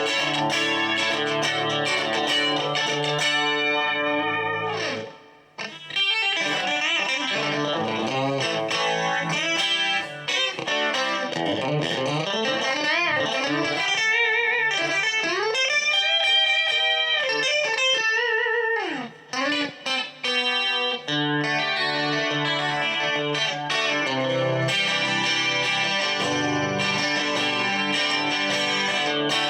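Electric guitar, a 2012 Fender Stratocaster on its Custom Shop Fat 50 bridge pickup, played with a clean tone. It strums chords and plays single-note lines, with string bends and wavering held notes in the middle stretch, and short pauses about five seconds in and again around twenty seconds in.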